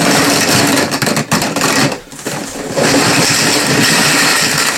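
Dozens of plastic PVC pipe fittings (elbows and tees) being dumped out of a cardboard box, clattering against each other in two long pours with a short pause between.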